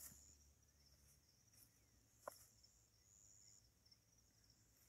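Near silence with faint high-pitched insect chirping, and one soft click a little over two seconds in.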